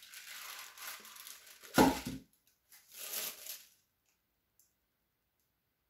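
Metal scraper scraping through wet acrylic paint on a sheet of paper: a long scrape, a loud thump about two seconds in, then a second, shorter scrape.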